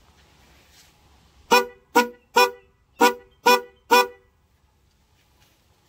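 Pair of red HELLA snail-type car horns honked six times in quick short toots over about two and a half seconds.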